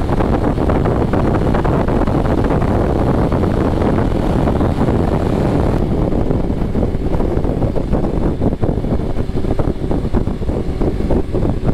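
Wind rushing over the microphone of a BMW S1000RR rider at highway speed, mixed with engine and road noise. The hiss eases a little about six seconds in as the bike slows from over 100 mph.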